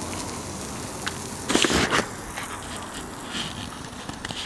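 Steak sizzling on the grate of a small steel Firebox stove over hot coals, with faint crackles. About one and a half seconds in there is a loud scuffing rush of noise lasting about half a second.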